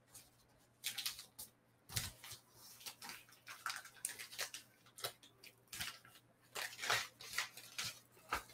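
Paper envelope and packaging rustling and crinkling in short, irregular bursts as an item is slipped into the envelope, over a faint steady low hum.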